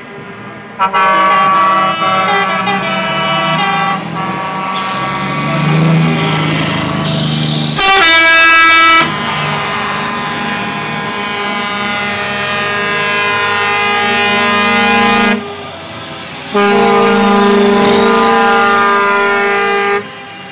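Truck air horns sounding in long held blasts, several tones together, as show trucks drive past, with one very loud blast about eight seconds in and a short break before a last long blast.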